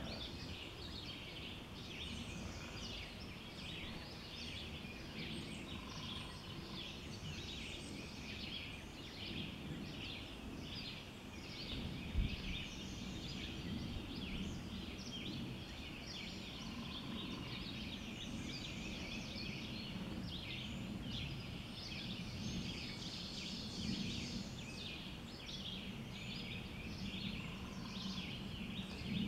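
Woodland dawn chorus: many songbirds chirping and singing at once in a dense, continuous wash, over a steady low background rumble. A short mid-pitched call repeats about every ten seconds, and there is a single sharp knock about twelve seconds in.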